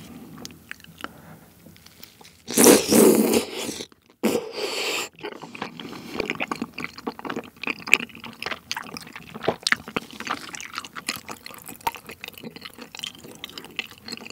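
Close-miked eating of tteokbokki, chewy rice cakes in spicy sauce: two loud wet mouth sounds about three and four and a half seconds in, then steady chewing with many small sticky clicks.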